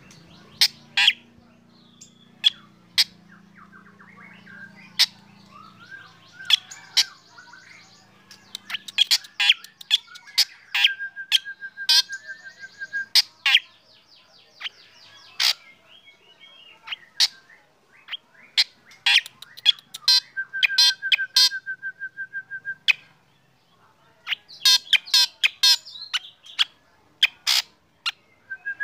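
Black drongo singing: short, sharp whistled notes in quick, irregular succession, twice breaking into a fast trill held on one pitch for two to three seconds.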